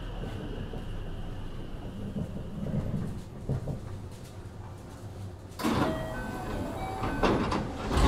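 JR West 321 series electric train standing at a platform with a low steady hum. About five and a half seconds in, its sliding passenger doors open with a sudden burst of air and a clunk, and more door noises follow near the end.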